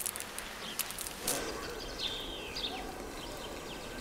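Small birds chirping a few times over a faint steady hiss, after a short rush of noise about a second in.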